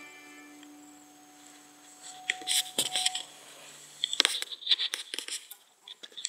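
Camera handling noise: irregular rustling, scraping and clicks as the camera rubs and knocks against a dog's fur. It starts about two seconds in and grows busier near the end.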